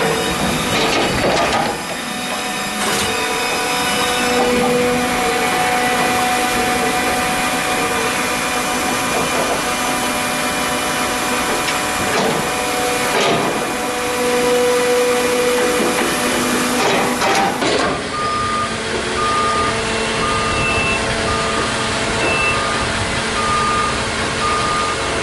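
Loud, steady heavy machinery noise from sawmill equipment running. After a cut partway through, a vehicle's reversing alarm beeps regularly, just over once a second, over the engine noise.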